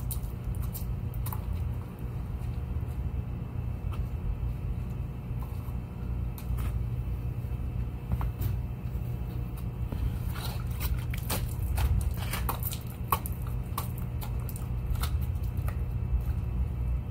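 A wet microfiber cloth wiping and squeaking over a polished aluminum truck fuel tank, in scattered short squeaks that cluster about ten to thirteen seconds in, over a steady low engine rumble.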